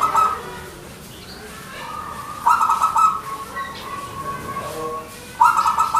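Zebra dove (perkutut) singing: three short bursts of rapid staccato cooing notes, about three seconds apart, the second trailing into a softer drawn-out coo.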